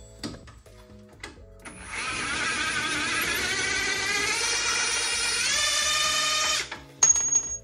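Cordless impact wrench hammering on the lower strut-mount bolt for about five seconds, its pitch stepping up shortly before it stops as the bolt loosens, then a brief second burst near the end. Background music plays throughout.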